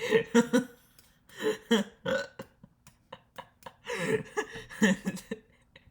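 A man's exaggerated comic wheezing in two bouts, a short one about a second and a half in and a longer one around four seconds in, with short clicks between.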